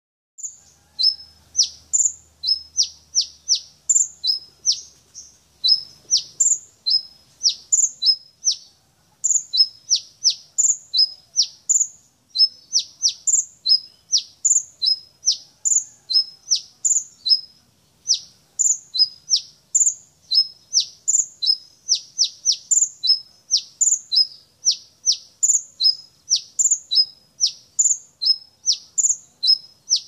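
Caged 'kolibri ninja' sunbird singing without pause: a fast run of sharp, high chirps, each sweeping downward in pitch, two to three a second, broken only by a few short gaps.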